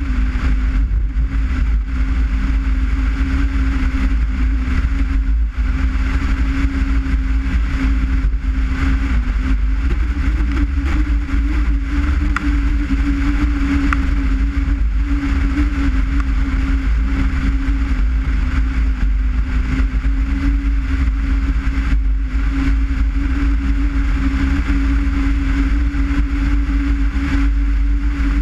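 Skoda Forman car driving at a steady cruise, its engine holding an even drone over a constant low rumble of road and wind noise.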